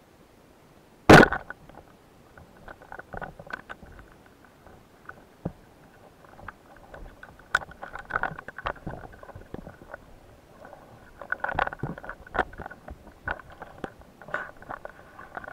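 Underwater sound picked up by a spearfisher's camera: one sharp, loud knock about a second in, then scattered lighter clicks and knocks with faint rubbing noises in between.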